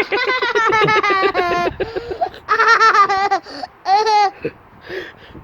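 A young child laughing excitedly in three bouts of rapid, high-pitched giggles, the longest at the start.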